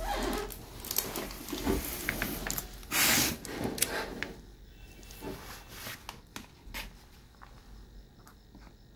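Handling noises on a workbench: rustling and scraping with scattered clicks and knocks, loudest about three seconds in, then thinning to faint clicks over a low steady hum.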